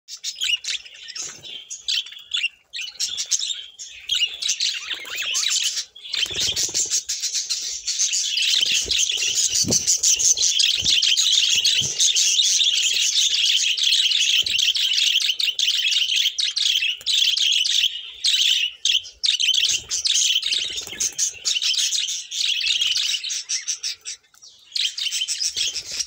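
A flock of budgerigars chattering: many chirps and warbles overlapping continuously, with a few brief lulls.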